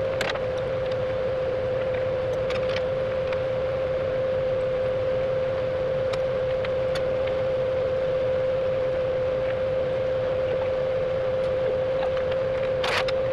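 Heavy machinery running steadily, with a constant whine held at one pitch over a low rumble and a few light clicks; a short sharp noise cuts in near the end.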